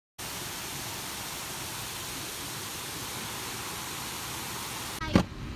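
Steady, even rush of water pouring over a small stone weir into a rocky stream. It cuts off near the end, followed by a single sharp thump.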